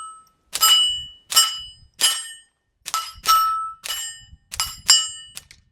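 Steel targets ringing with a clang at each hit from subsonic .22 LR fired through a suppressed Tactical Solutions PacLite pistol. There are about nine hits, one or two a second. The suppressed shots are quiet next to the ringing steel.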